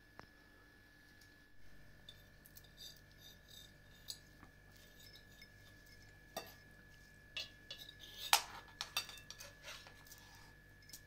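Faint scattered clicks and light clinks of dishes and utensils being handled by hand, with one sharper clink about eight seconds in. A faint steady high tone runs underneath.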